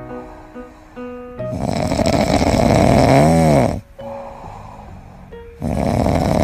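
Dog snoring loudly: two long rasping snores, the first ending in a short rising-and-falling voiced note. Background music plays under them.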